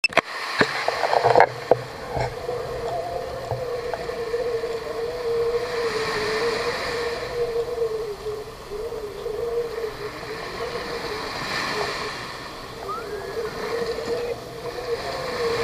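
Small waves washing up onto a sandy beach, the hiss of the surf swelling and fading every few seconds, over a steady wavering hum. A few knocks in the first two seconds.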